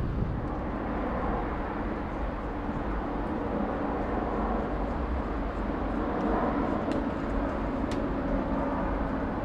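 Jet airliner flying low overhead, its engines making a steady rumble.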